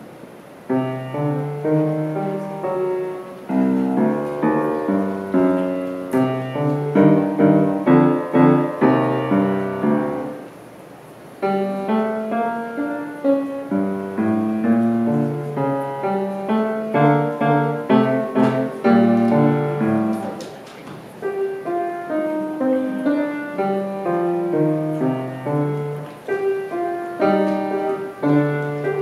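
Acoustic grand piano played solo: runs of quick notes and chords, with a short break about ten seconds in before the playing picks up again.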